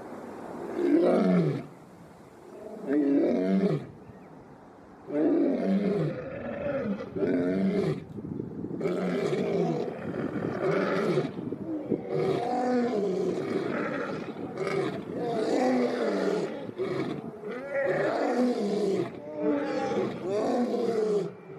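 African lion roaring: a few spaced deep calls, each falling in pitch, then from about five seconds in a long, nearly unbroken run of repeated roars and grunts.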